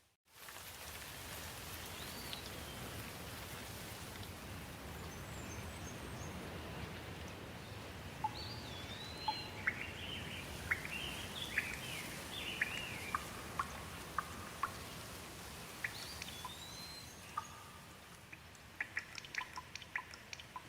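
Steady rain with birds chirping through it, a lively run of rising and falling calls from about eight to thirteen seconds in. Near the end, quick sharp drips of water.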